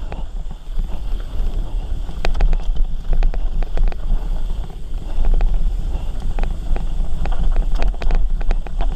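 Mountain bike ridden fast down a dry dirt singletrack: wind buffets the camera microphone with a steady rumble, and the bike gives off many sharp rattles and knocks as it runs over bumps, in clusters through the run.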